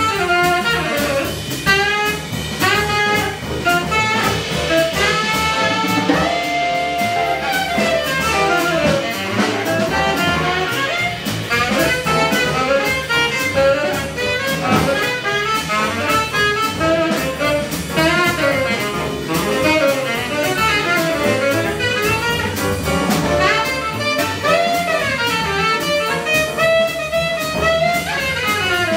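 Jazz quintet playing: a quick, busy melodic lead line over drums and accompaniment, with no break.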